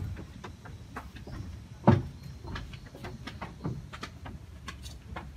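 Scattered light clicks and taps, with one heavier thump about two seconds in, over a low background rumble.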